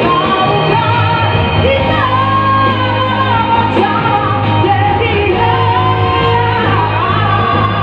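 A singer's voice holding long notes that slide between pitches, over keyboard accompaniment with a steady bass.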